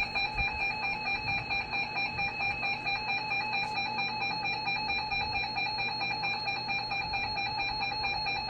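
Emergency Alert System attention signal: a harsh, buzzing electronic tone, rapidly pulsing, held steady for about nine seconds before it cuts off near the end. It announces that an emergency alert message, here a tornado warning, follows.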